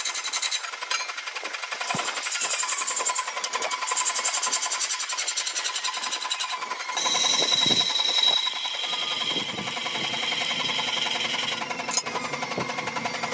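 A power tool running with a fast, even pulsing rattle. Its tone shifts about halfway through, and a sharp click comes near the end.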